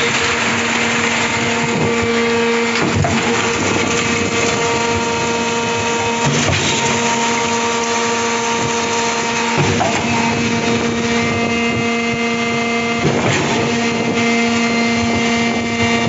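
Electric-motor concrete pump running with a steady hum. A short knock comes about every three and a half seconds as the pump switches stroke.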